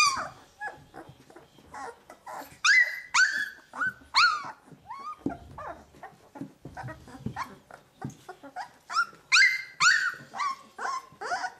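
Two-week-old Leonberger puppies squealing and whining: many short high cries that drop in pitch, coming in a flurry about two seconds in and another near the end.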